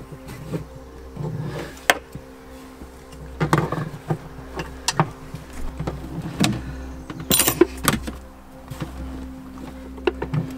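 Metal hand tools clicking and clinking on engine fasteners as the oil pump is worked off a Sea-Doo engine, with a short clatter of metal about two-thirds of the way through. A steady hum runs underneath.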